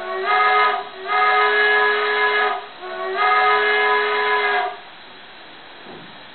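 Chime steam whistle from the onboard sound decoder of a Märklin HO Mikado model locomotive, played through its small loudspeaker. It gives three blasts: a short one, then two long ones of about a second and a half each, with a steady faint hiss underneath.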